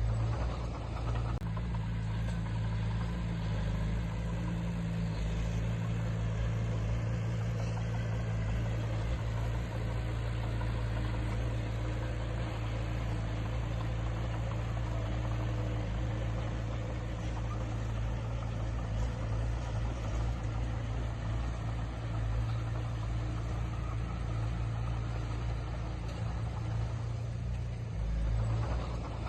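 Diesel engine of heavy earthmoving equipment running steadily with a deep, even drone.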